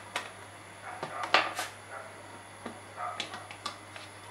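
Irregular clicks and knocks of cables and plugs being handled and connected on a wooden desk, the sharpest pair about a second and a half in, over a faint steady low hum.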